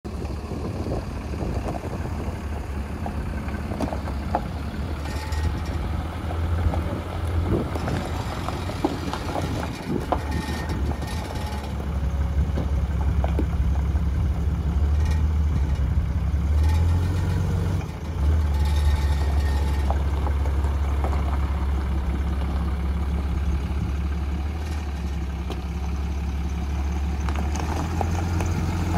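2007 Dodge Ram 3500 dump truck's engine running with a steady low hum as the truck drives across gravel, growing louder about twelve seconds in, with some crunching of gravel.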